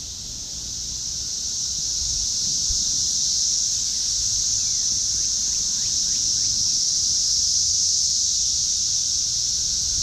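Chorus of periodical cicadas: a steady, high-pitched hum from many insects at once, swelling over the first couple of seconds and then holding.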